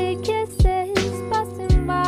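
Intro jingle music: a melody over held chords, with a deep drum beat about once a second.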